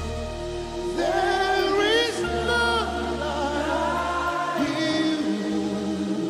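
Live gospel worship music: sustained keyboard chords over steady low bass notes, with a voice singing long, wavering held notes from about a second in and again near the five-second mark.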